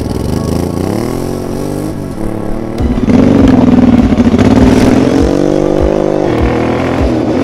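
Honda Transalp 700's V-twin engine, fitted with a decat exhaust collector, revving as the motorcycle accelerates, its pitch rising and then dropping back several times. The sound gets louder about three seconds in.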